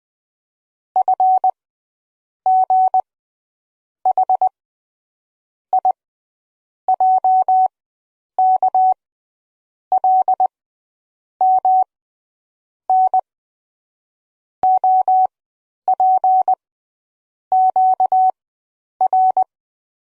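Morse code sent as a single steady beep tone: short and longer beeps in clusters of two to four, with silent gaps between letters. A single sharp click comes about three quarters of the way through.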